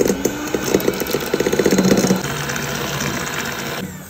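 Electric mixer beating egg yolks and sugar in a stainless steel bowl. The beaters clatter rapidly against the bowl for the first two seconds, then the motor runs more evenly and is switched off shortly before the end.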